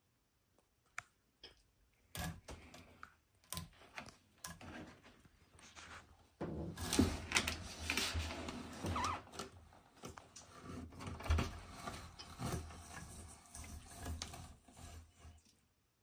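Black-throated monitor lizard's claws clicking and scraping on the enclosure's wooden ledge and walls as it climbs. Scattered taps at first, then a denser run of scrabbling and knocking from about six seconds in as it clambers down.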